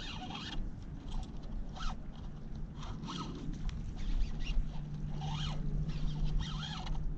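Fishing reel buzzing in a series of short bursts, about one a second, as a hooked fish is played on a bent rod: the reel giving line and being cranked in.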